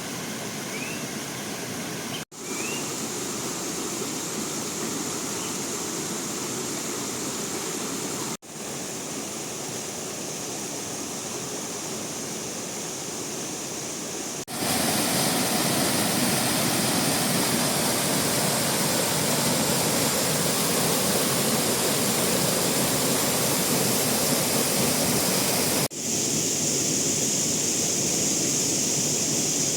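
Steady rush of flowing water, a stream or waterfall, heard across several back-to-back clips that change abruptly. It gets louder about halfway through.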